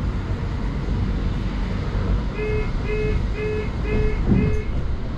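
Steady engine and road rumble of a London bus heard from on board. Five short electronic beeps sound near the middle, evenly spaced about half a second apart.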